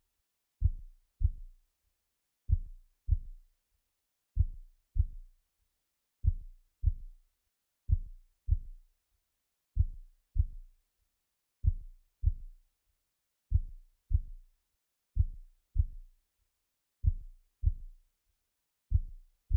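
Slow heartbeat sound: soft low double thumps, lub-dub, repeating about every two seconds with silence between.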